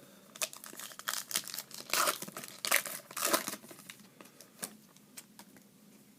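Foil wrapper of a baseball card pack being torn and crinkled: a run of crackling rustles for the first three and a half seconds, then a few lighter, scattered crackles.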